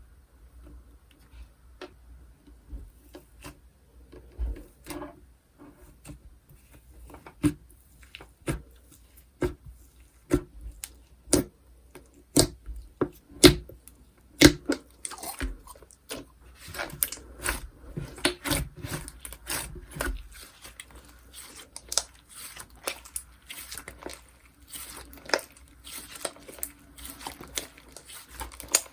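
Slime being handled: irregular sharp pops and squishes as it is pressed and pulled, turning to a busier crackling in the second half.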